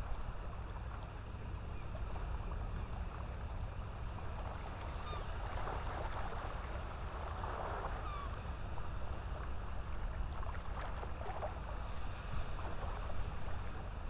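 Shoreline ambience: a steady low rumble of wind and surf, with soft crackling in the wet sand from about five seconds in and again later on.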